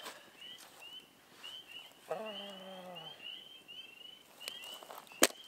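A night chorus of small animals: short, high, slightly rising peeps, two or three a second. About two seconds in, a man's low hum lasts about a second, and near the end comes a single sharp crack.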